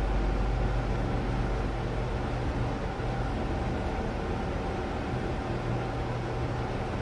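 Passenger lift car travelling downward at steady speed, heard from inside the car: a steady low hum with an even rushing noise over it.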